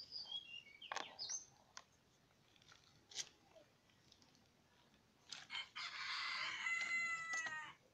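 A rooster crows once, a single call of about two seconds that comes in the last third and is the loudest sound. Before it there are a few sharp clicks and knocks.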